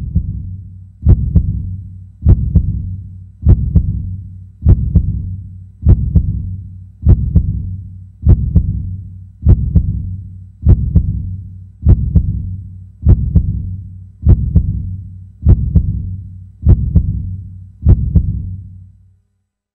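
Slow heartbeat sound effect: a deep double beat repeating about every 1.2 seconds, fading out near the end.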